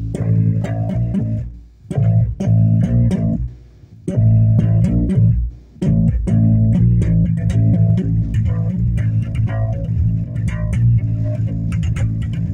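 Bass guitar played solo: a run of plucked low notes that stops briefly three times in the first six seconds, then carries on without a break.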